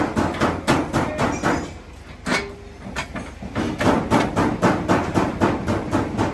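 Rapid hammer blows, about four a second, with a pause of nearly two seconds in the middle broken by a single blow.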